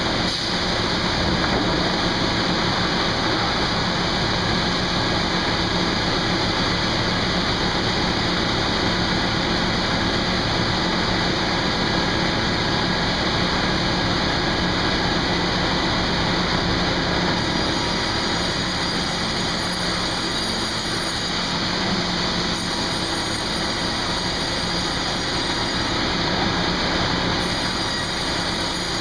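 Sawmill machinery running steadily: a dense, continuous mechanical noise with a steady hum underneath.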